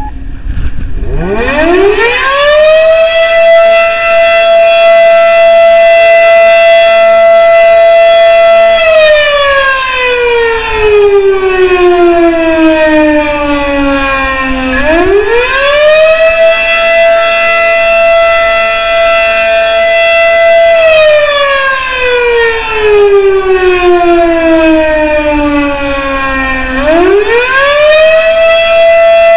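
Federal Sign & Signal Model 7 motor-driven outdoor warning siren sounding in a wailing cycle. It winds up from a stop about half a second in, holds a steady high tone for about six seconds, then coasts down to a low pitch over about six seconds before winding back up. The whole cycle repeats, with a third wind-up starting near the end.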